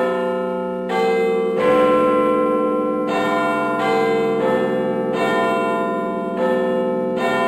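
Church bells ringing a peal: bells struck one after another, about one a second, each ringing on under the next.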